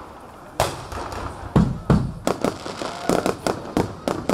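Aerial fireworks going off: a loud bang just over half a second in, then a quickening run of sharp bangs and cracks.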